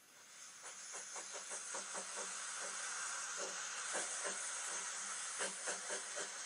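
Steam locomotive sound effect: a steady hiss of steam fading in at the start, with a quick run of puffs over it, played through a tablet's small speaker.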